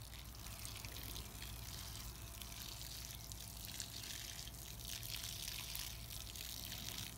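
Water pouring in a steady trickle from the spout of a plastic watering can and splashing onto mulched soil.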